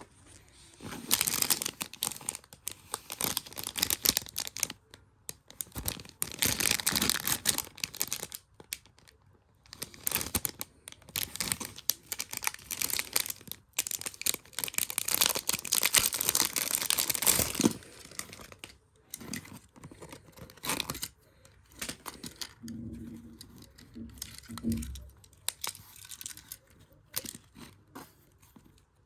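Packaging being crinkled and torn open by hand, in loud rustling bursts for most of the first eighteen seconds, then quieter, scattered handling.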